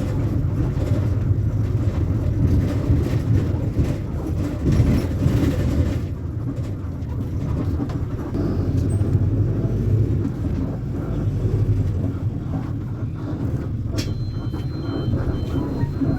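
Diesel engine of a Volkswagen Volksbus 9.160 OD bus running, a steady low rumble with body rattles. Near the end a click is followed by a thin electronic tone with a few short beeps.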